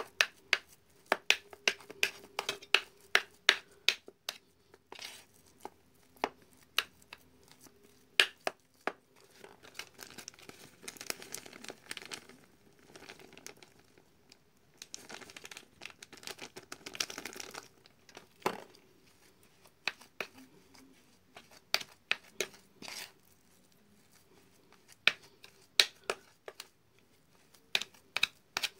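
Hands kneading and pressing a sticky fish bait dough on an enamel plate: a run of sharp wet clicks and smacks as the fingers squeeze and pull at the paste, with two longer rustling stretches in the middle. A faint steady hum runs underneath.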